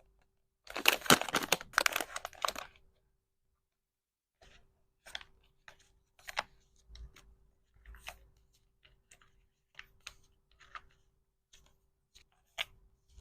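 Packaging being handled: a loud burst of tearing and crinkling about a second in that lasts about two seconds, followed after a pause by scattered light crinkles and taps.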